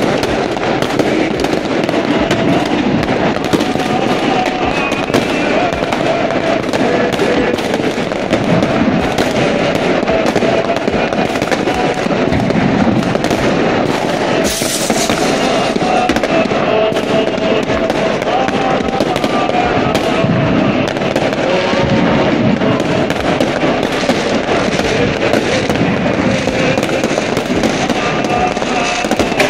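Fireworks and firecrackers going off thickly and without pause, a steady rapid crackle of bangs, with voices underneath.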